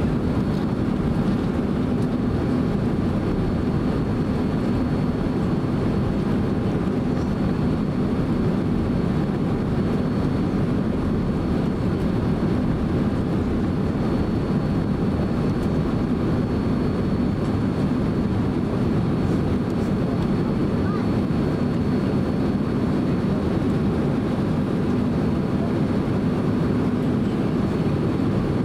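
Steady low cabin rumble inside a Boeing 767-300 airliner taxiing, its twin turbofan engines at taxi power, with a faint steady high whine above it.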